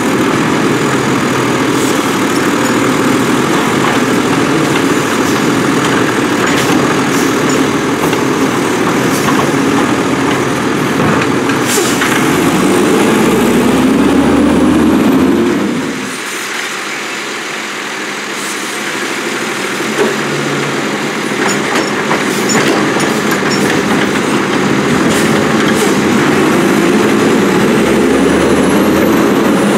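McNeilus Autoreach side-loader garbage truck on a Condor chassis, its diesel engine running hard as the truck works the carts. The engine pitch climbs a little before halfway, then drops away suddenly to a lower level, and builds up again toward the end.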